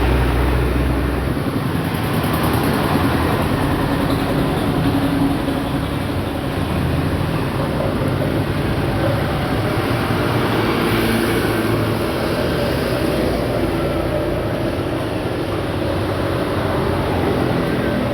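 Busy road traffic on a wet road in the rain: a steady mix of vehicle engines running and passing.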